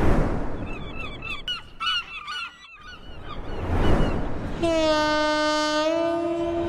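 Gulls calling in a rapid series of short squawks, then a long, steady horn blast that steps up slightly in pitch just before it ends.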